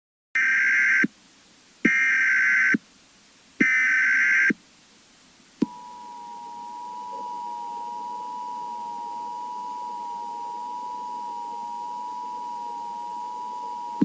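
Emergency Alert System opening: three one-second bursts of SAME digital header data about a second apart, then, after a click, the steady two-tone EAS attention signal held for about eight seconds, announcing an emergency alert.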